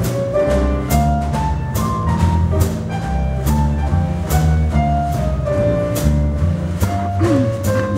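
High school jazz big band playing, with a steady beat marked by drum hits a little more than once a second over a moving bass line and sustained pitched notes.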